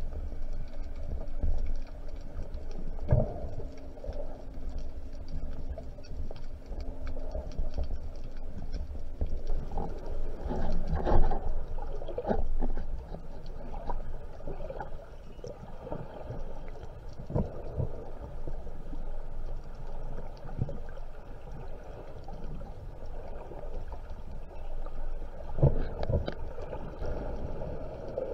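Underwater sound picked up through a camera's waterproof housing: a steady, muffled low rumble of moving water with scattered small clicks and a few louder knocks.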